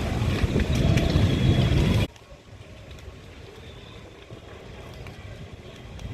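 Wind blowing in a heavy, low rumble that cuts off abruptly about two seconds in, leaving a much quieter, steady breeze for the rest.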